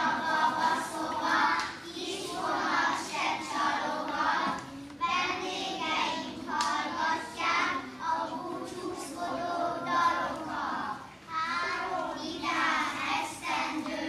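A group of young children singing together in phrases, with short breaks between them.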